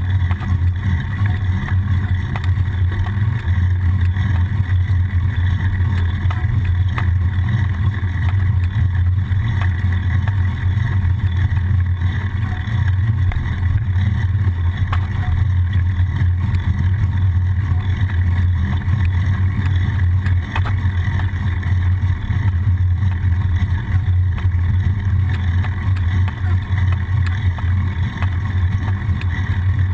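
Steady low rumble of wind and road vibration picked up by a bicycle-mounted GoPro HERO-960 while riding along a street.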